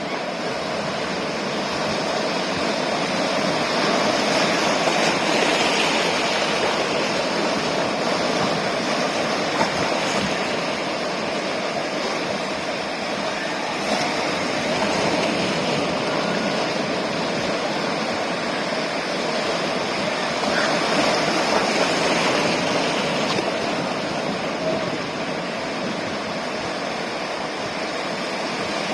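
Ocean surf breaking and washing on the shore as a steady rush, swelling a little a few seconds in and again about two-thirds of the way through.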